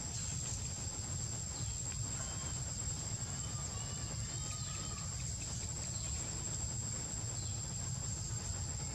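Insects droning steadily on one high note, over a low rumble of background noise, with a few faint short chirps around the middle.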